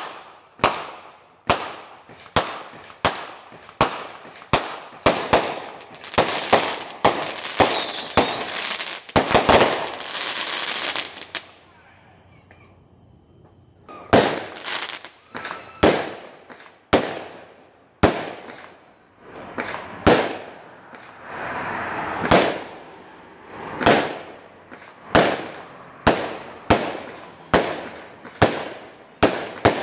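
Fireworks going off in quick succession: sharp echoing bangs about one to two a second, with a dense stretch of crackling near the middle. A short lull follows before the bangs resume.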